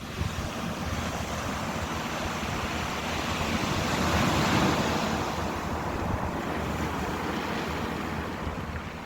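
Ocean waves washing on the shore, a steady rush that swells to a peak about halfway through and then eases back.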